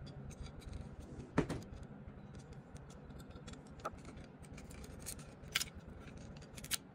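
Small metallic clicks and scrapes of a steel pick and the cam chain against the cylinder of a 110cc engine, as the pick works the timing-chain guide roller free. Scattered light clicks, a sharper one about a second and a half in and a few more near the end.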